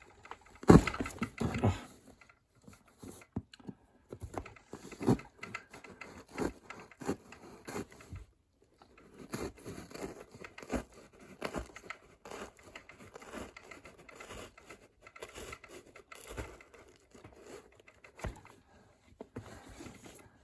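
A wrapped parcel being opened by hand: wrapping crinkling and tearing, with irregular scratches and light knocks, loudest about a second in.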